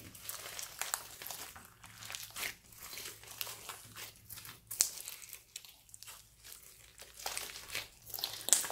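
Hands squeezing and kneading a large lump of slime mixed with foam beads: irregular wet crackling and squelching, with a sharper pop about five seconds in and another near the end.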